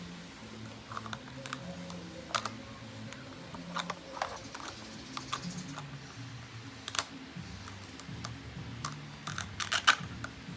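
Plastic toy fruit and a toy knife clicking and tapping as pieces are handled and cut. The taps come irregularly, with a quick cluster of louder clicks near the end.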